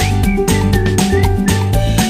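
Background music with a steady, upbeat rhythm.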